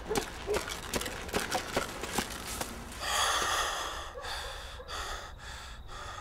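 A rapid run of sharp knocks and scuffs, then a man breathing hard in loud, ragged gasps, with short breaks between breaths.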